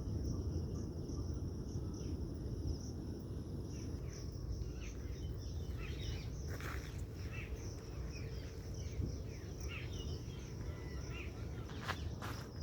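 Natural ambience: a steady high-pitched insect trill, with many short bird chirps scattered through the middle, over a constant low rumble.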